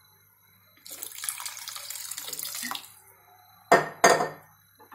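A stream of water running for about two seconds, starting about a second in, as water is added for the potato curry. Near the end come two sharp knocks, the loudest sounds.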